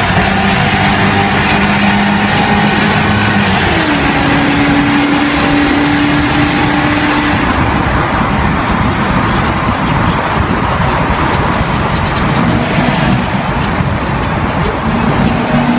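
BMW M60B40 4.0-litre V8 running loud under hard acceleration with its muffler deleted, heard from inside the cabin of an E34 wagon in a tunnel. The engine pitch steps down about four seconds in as the automatic gearbox changes gear.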